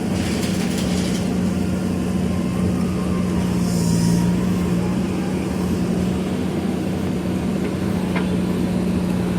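JCB backhoe loader's diesel engine running steadily, with a short hiss about four seconds in.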